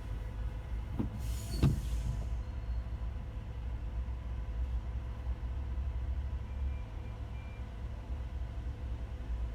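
Steady low rumble of a car driving slowly in heavy city traffic, heard from inside the cabin. About a second and a half in there is a brief hiss with a falling tone, the loudest moment.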